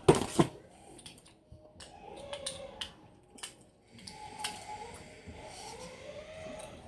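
A few sharp clicks and taps, the two loudest right at the start, over a faint wailing tone that slowly rises and falls.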